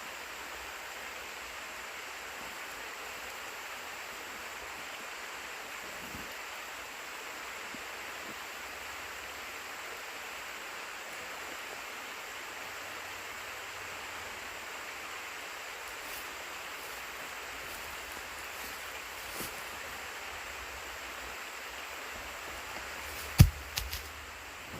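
Creek water running steadily. Near the end comes a single sharp knock, followed by a couple of lighter clicks.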